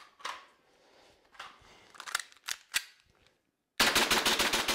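Gas blowback airsoft pistol: a few quiet handling clicks, then, near the end, a rapid full-auto burst of sharp shots with the slide cycling.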